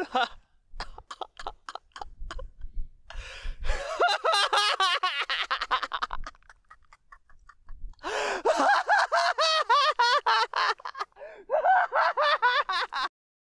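A man laughing hard and at length: quick breathy chuckles at first, then full-voiced bursts of laughter, with a short lull in the middle. It cuts off suddenly near the end.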